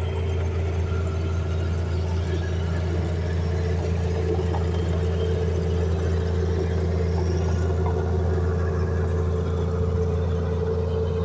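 Heavy machine's engine running steadily at a constant speed, with a deep steady hum.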